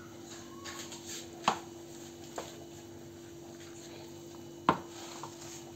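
A few sharp knocks of a wooden spoon against a plastic mixing bowl, the loudest about three-quarters of the way through, with faint rustling of a moist stuffing of vermicelli, parsley and olives being mixed. A faint steady hum runs underneath.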